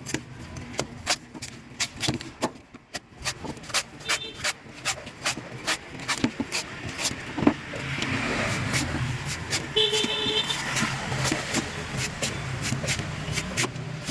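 Coconut being peeled with a blade: repeated sharp cutting strokes, a few each second. Road traffic runs behind it, with short car horn toots about four seconds in and again near ten seconds.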